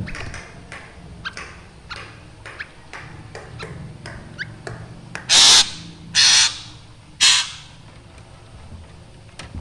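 Black drongo calling: a run of short, sharp notes, then three loud, harsh calls about a second apart near the middle.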